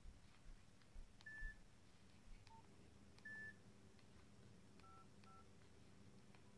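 Faint short electronic beeps from a Nokia 1100's keypad as keys are pressed: a few single beeps, then two quick two-pitch beeps about five seconds in, with light button clicks.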